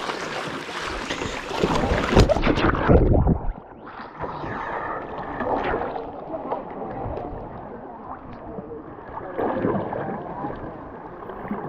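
River water rushing and splashing around paddleboards running a riffle on the Main Salmon River. It is loudest for the first three seconds or so, then settles to a steadier, quieter rush.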